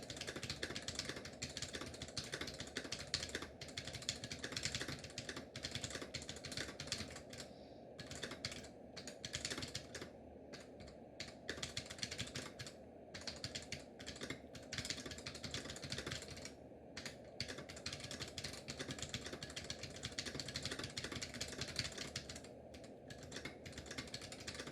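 Continuous typing on an Oki HMB 35957U-22 keyboard fitted with Oki tactile Gourd springs: a dense stream of key clicks, broken by a few brief pauses.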